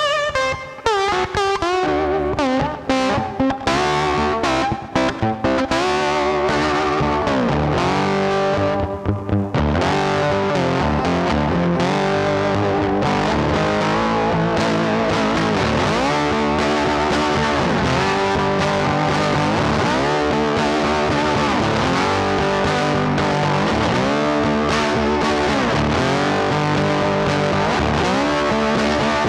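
Background rock music with distorted electric guitar, with a few brief breaks in the first several seconds.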